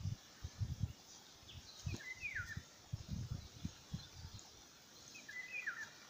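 A songbird gives two short whistled calls about three seconds apart, each a quick phrase with a falling slur. Irregular low rumbling bumps, the loudest sound, come and go under them through the first two thirds.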